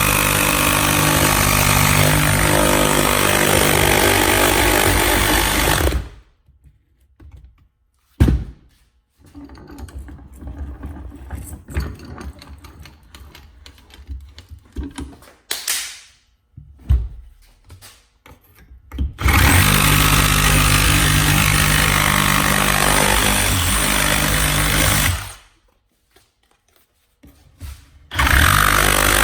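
DeWalt reciprocating saw with a Milwaukee Axe metal-cutting blade sawing through the thin steel can of an oil filter held in a vise. It runs in three goes: about six seconds, a pause with a sharp knock and scattered handling sounds, about six seconds more, then a brief restart near the end.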